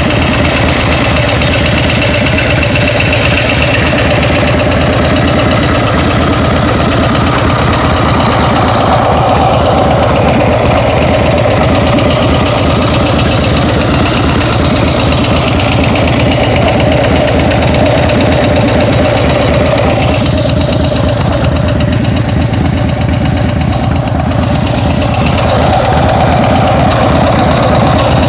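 Engine idling steadily with a fast, even ticking in its running, which the owner thinks comes from the rear cylinder.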